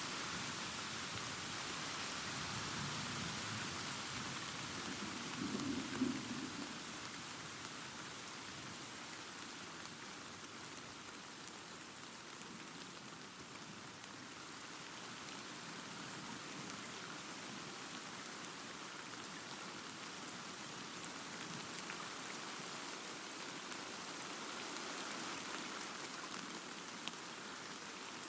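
Steady rain falling, with a low rumble of distant thunder in the first several seconds that swells to a brief peak about six seconds in.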